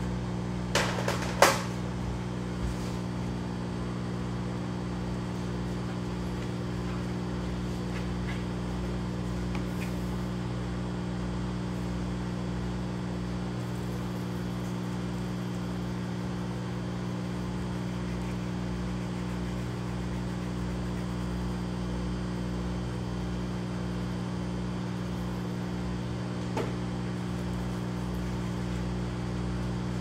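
Steady mechanical hum of grow-room equipment, with a few sharp knocks about a second in.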